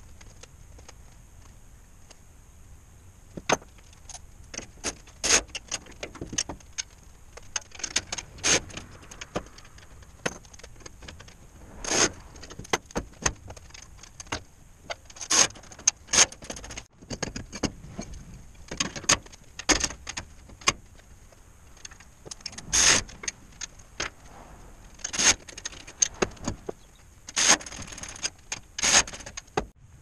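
Irregular metallic clinks, knocks and clatters of small metal parts and tools being handled, over a faint steady high whine.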